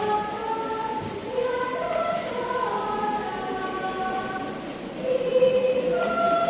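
Children's church choir singing in several-part harmony, with long held notes.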